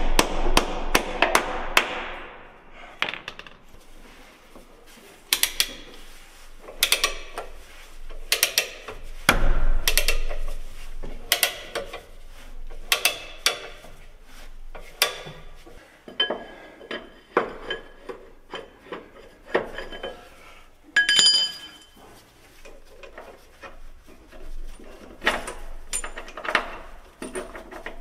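Hand hammer striking the steel plow wing-frame mount on a truck chassis: a quick run of blows at first, then scattered strikes, some leaving a ringing note of metal.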